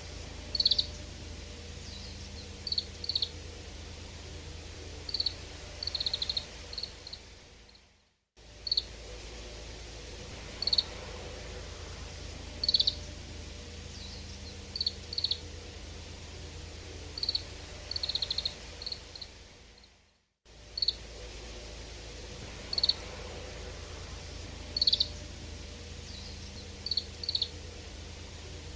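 Oriental greenfinch calls: short, high chirps and twitters in small clusters every second or two, over a low steady hum. The calls fade out and start again twice.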